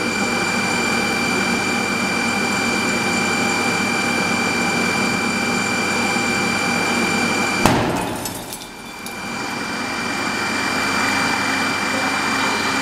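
Steady rushing noise with a constant high whine from a fire-test rig's radiant heating panels, broken about seven and a half seconds in by one sharp crack: the heated specimen spalling explosively. The noise dips for a moment after the crack, then returns.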